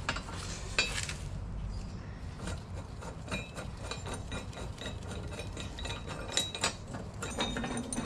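Light metallic clinks and taps of a steel spring compressor's hooks and threaded rods being fitted onto a coil spring, with a couple of louder knocks about six and a half seconds in.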